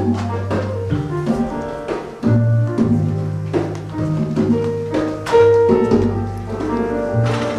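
Jazz trio of piano, bass and hand percussion playing an instrumental passage: held bass notes changing every second or so under piano chords, with percussion strikes throughout.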